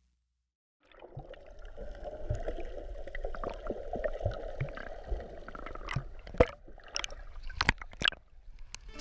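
Sea water heard through an underwater camera, starting about a second in: a muffled churning with bubbling, broken by sharp clicks and knocks against the camera housing. The loudest knock comes about six seconds in, and a quick cluster follows near the end.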